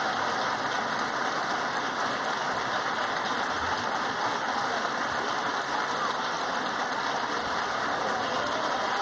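An audience applauding steadily, many hands clapping without a break.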